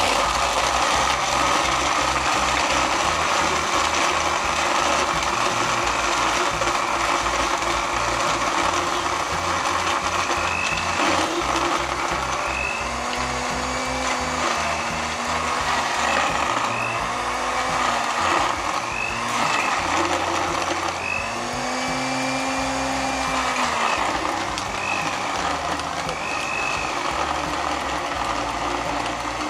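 Countertop blender running steadily at high speed, blending a milk drink with ice; it starts right at the beginning. Background music with a beat and a melody plays underneath.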